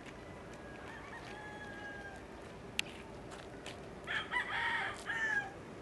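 A rooster crowing: a loud crow about four seconds in lasting about a second and a half, with a fainter crow from farther off about a second in.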